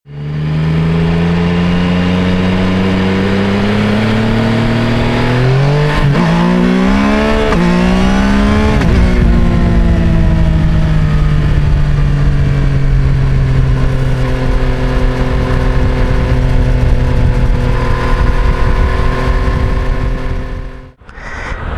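Yamaha MT-09 SP's three-cylinder engine running under way, first at a steady pitch, then rising three times in quick succession about six to nine seconds in, then settling to a steady, slowly falling pitch. It cuts off abruptly about a second before the end.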